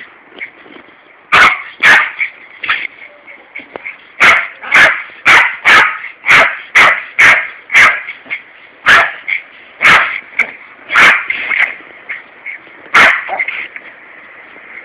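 Yorkshire terrier barking at a garden hose in sharp, high yaps: two early on the way in, then a quick run of about two barks a second, then scattered barks further apart.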